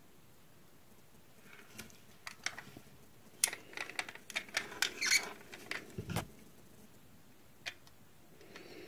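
Light clicks and scratching from fingers handling a 1:32 Kinsmart Peugeot 307 die-cast model car, turning it over and opening its door, starting about a second and a half in; a single click near the end.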